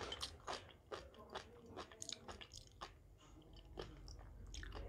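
A person chewing sea grapes (green caviar seaweed), with about a dozen irregular crisp crunches.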